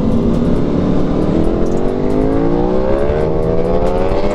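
Sport motorcycle engine pulling hard under acceleration, its pitch holding steady for about a second and then climbing smoothly to the end as it revs up through the gear, with wind rush on the helmet microphone.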